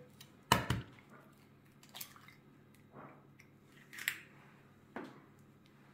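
A raw egg being cracked into a glass bowl. Two sharp knocks as the shell is struck, then softer cracks and crackles about once a second as the shell is pulled apart and the egg drops in.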